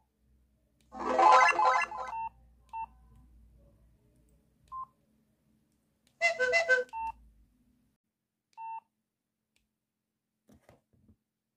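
Samsung SGH-P510 mobile phone playing two short polyphonic tone jingles of about a second each, with single short keypad beeps in between and after as its tone list is stepped through.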